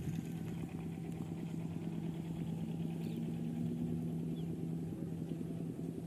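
An engine running steadily at an even speed, giving a low, unbroken hum.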